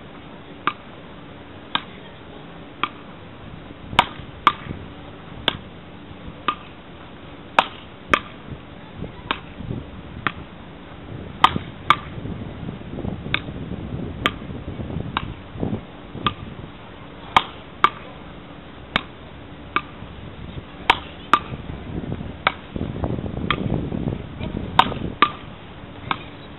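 Wooden beach-racket paddles hitting a small ball back and forth in a long rally: a sharp crack about once a second, over a low background rumble that swells twice.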